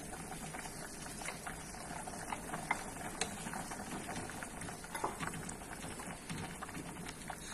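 Pot of mung bean soup bubbling at a boil, with scattered small ticks and knocks as a wooden spoon stirs leafy greens into it.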